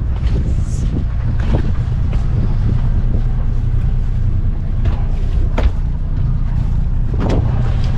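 Sailboat's inboard engine idling with a steady low rumble, left running to cool down after being revved to 2000 RPM in reverse to set the anchor, before it is shut off. A few faint clicks sound over it.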